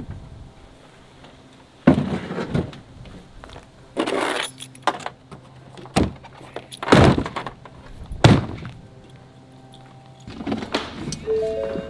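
A folded baby stroller being loaded into a pickup truck bed: a series of clunks and rattles as its frame and wheels knock against the bed, about five separate knocks spread over several seconds.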